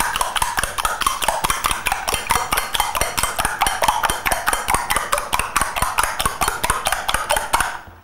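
Metal spoon beating eggs in a glass mixing bowl: fast, steady clinking of the spoon against the glass, several strokes a second, stopping just before the end.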